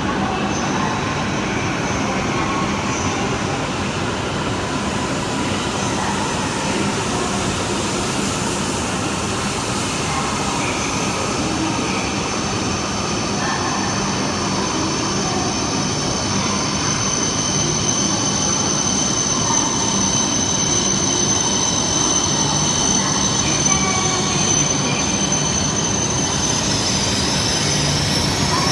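A Shinkansen train moving slowly along the platform, its running noise steady throughout, with a high wheel squeal that is loudest about two-thirds of the way through.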